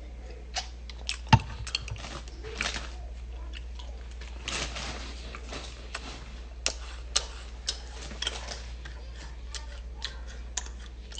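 Someone chewing close to a phone microphone, with irregular small clicks and mouth noises and one sharp knock about a second and a half in, over a steady low hum.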